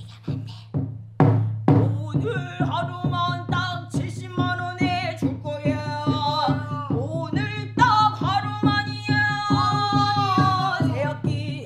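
A woman singing in pansori style, her voice bending and wavering between notes and holding one long note near the end, over steady drum strokes.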